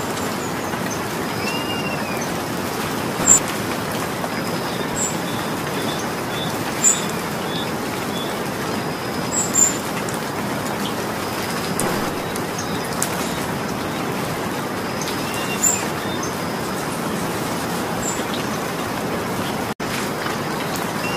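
Steady rain falling, with a bird giving short arched chirps every few seconds and a few sharp high ticks over the rain.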